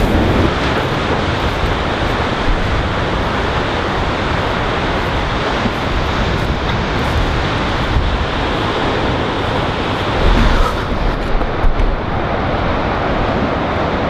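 Waves thrown up by a large iceberg breaking up, surging and churning over a rocky shore in a steady rush of water, with wind buffeting the microphone in gusts.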